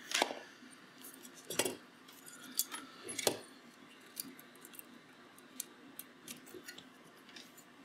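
Light clicks and taps of multimeter probe tips touching pins on a circuit board and of the board being handled while it is checked for shorts, with a few louder knocks in the first three or four seconds.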